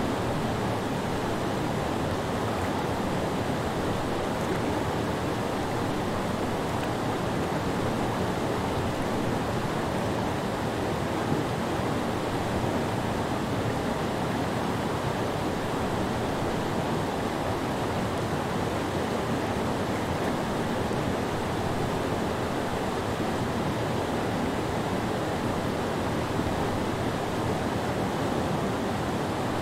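Creek whitewater cascading over a low rock ledge in rapids: a steady, unbroken rush of water.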